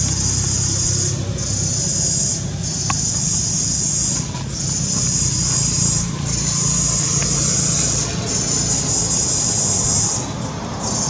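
Cicadas calling: a loud, high shrill hiss that breaks off briefly every second or two, over a steady low rumble.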